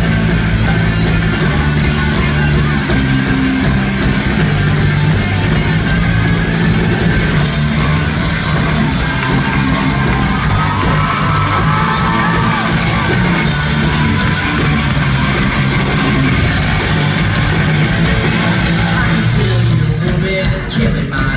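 Live rock band playing loud with electric guitar and drums, recorded from the crowd in a concert hall. The sound gets brighter and fuller about seven seconds in.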